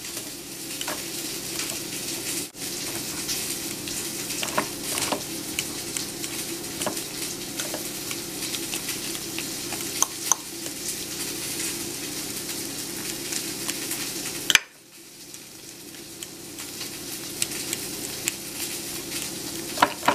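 A fork mashing ripe avocado in a glass baking dish: wet squishing with many light clicks of the tines against the glass. One sharper knock comes about fourteen seconds in, and the mashing is quieter after it.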